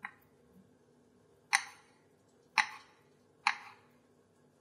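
Wire cheese slicer cutting through a soft fresh cheese and tapping down onto a bamboo cutting board three times, about a second apart.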